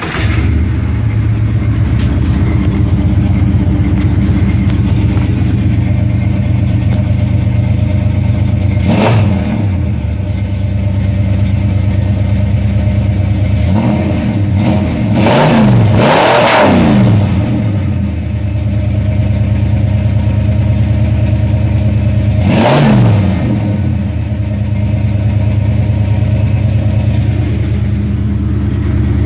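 Carbureted Chrysler 360 V8 in a 1979 Jeep CJ5 catching right at the start, then idling through a dual Flowmaster exhaust. Short throttle revs rise and fall about nine seconds in, three or four in quick succession a few seconds later, and once more near the end.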